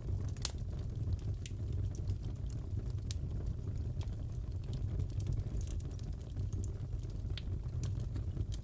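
Fireplace fire crackling: a steady low rumble with irregular sharp pops and snaps.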